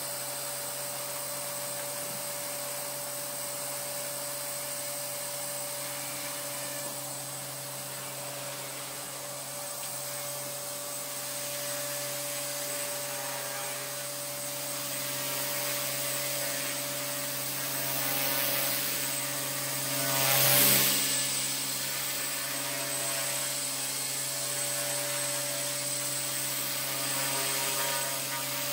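Align T-Rex 250 electric RC helicopter hovering, its motor and rotor giving a steady whine and hum, with a brief swell in loudness about two-thirds of the way in.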